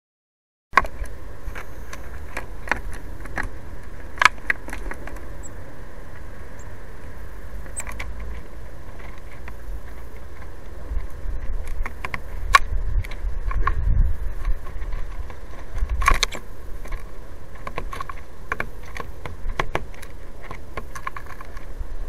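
Scattered sharp clicks and taps of a blue tit's bill and feet working the plastic seed trays of a feeder, over a steady low rumble that swells louder a few times past the middle. The sound starts abruptly just under a second in.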